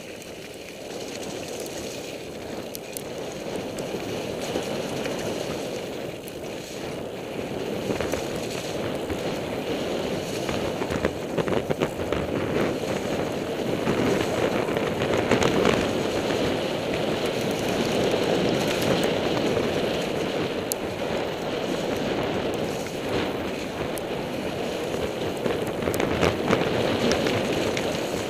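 Mountain bike riding fast down a snowy trail: wind rushing over the action camera's microphone and tyres rolling over snow, with scattered clicks and knocks from the bike. The rush grows louder over the first half.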